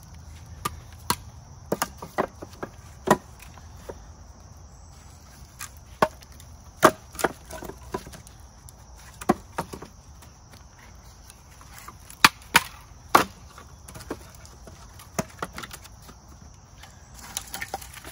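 Split firewood logs knocking and clattering against each other and the wooden bundling rack as they are pulled off a stacked pile and set in, one piece at a time. The knocks come irregularly, a few seconds apart, some much louder than others.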